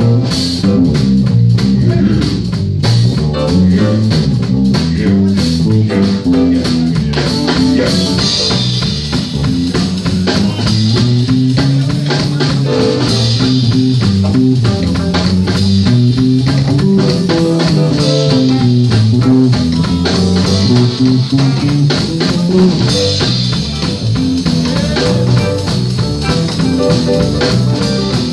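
Live blues band playing: electric guitar, electric bass and drum kit, with the bass line stepping up and down under a steady beat.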